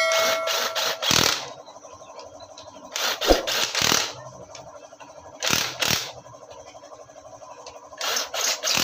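Handheld power tool run in several short bursts on a nut atop a motorcycle engine's crankcase, with a steady low hum in the pauses between.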